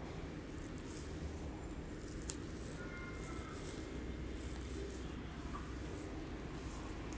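Fingers rubbing and scratching through short hair on the scalp during a head massage: a soft rustling that comes in short bursts about twice a second, over a low steady hum.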